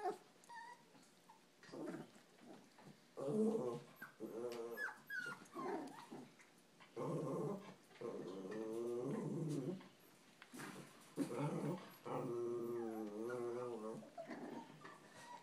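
Cavachon puppies vocalising in a string of short bouts, each lasting a second or two, with a wavering growl-and-whine quality typical of puppy play.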